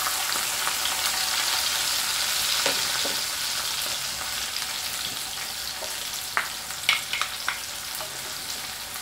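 Sliced garlic and ginger sizzling in hot oil in a metal kadai, a steady frying hiss that eases slowly. A few sharp clicks come near the end.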